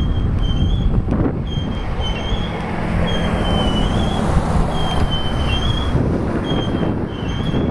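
Freight cars of a BNSF manifest train rolling past, their steel wheels squealing against the rail in short high stretches about once a second, often two close together, over a steady rumble of wheels on track.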